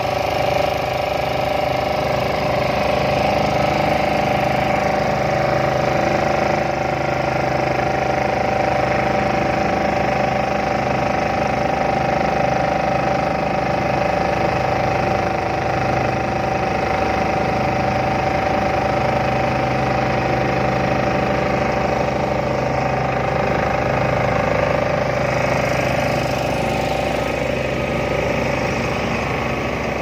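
Excavator-mounted hydraulic vibratory pile hammer running, vibrating a steel sheet pile into the ground, with the excavator's engine running: a loud, steady mechanical drone with a steady whine on top that fades near the end.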